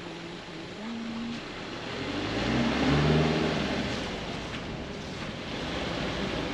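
Subaru Crosstrek's flat-four engine revving up under load off-road. Its pitch rises and it grows loudest about three seconds in, then eases off, over a steady rushing noise.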